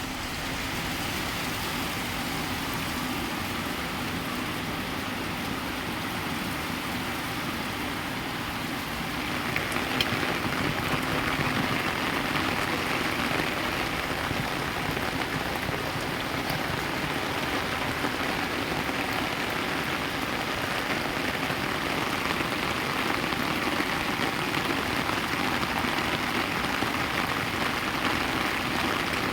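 Heavy rain falling steadily, growing louder about a third of the way in, with a single sharp tap at about the same time.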